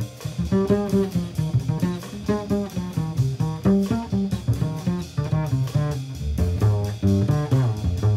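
Small-group jazz from a 1968 studio record, with a plucked double bass to the fore playing a busy line of notes.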